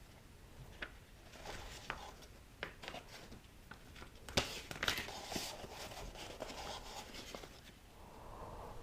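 Cardboard and paper packaging being handled: scattered light taps and clicks with bouts of rustling, the sharpest click about four and a half seconds in.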